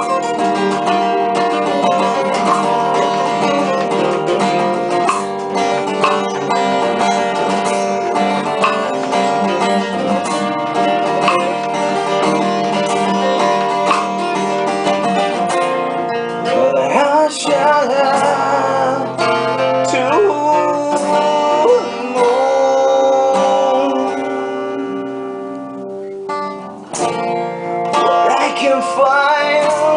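Two acoustic guitars strumming and picking chords together. In the second half a voice sings long gliding notes over them, and near the end the playing drops quieter for a moment before picking up again.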